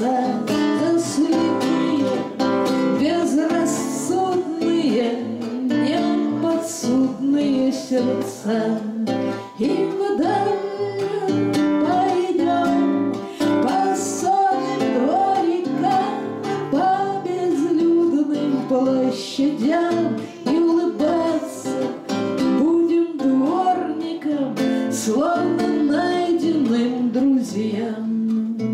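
A woman singing a Russian bard song, accompanying herself on a strummed classical guitar.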